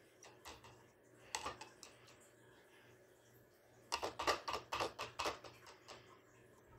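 A metal spoon knocking against a thin plastic cup as whipped cream is shaken off it: a few light clicks about a second in, then a quick run of sharp taps for about a second and a half near the middle.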